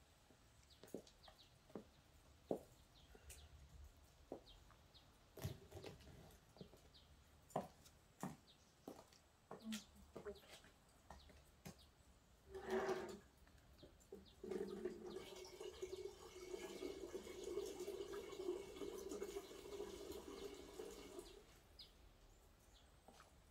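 Scattered light clicks and knocks from things being handled at a small metal barbecue grill. Then, after a short rustling burst, a steady rushing, pouring sound lasts about seven seconds and stops.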